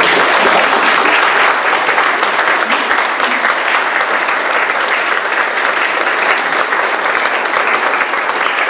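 Audience applauding: dense, steady clapping from a seated crowd that breaks out suddenly and keeps going.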